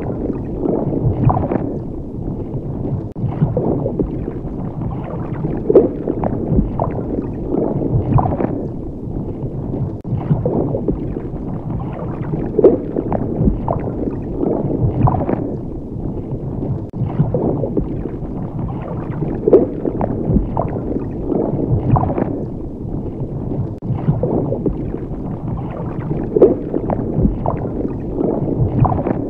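Underwater ambience: low, watery gurgling and sloshing with surges every few seconds, repeating in a loop about every seven seconds.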